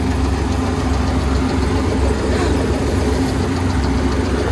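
Kubota ER470 combine harvester's diesel engine running steadily at a constant pitch.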